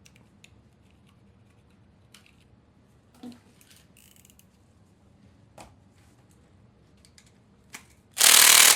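A 1/4-inch electric impact driver hammering in one short burst near the end on a bolt of the injection pump timing cover, a tool too light for the job. Before it, a few faint clicks and knocks of tools being handled.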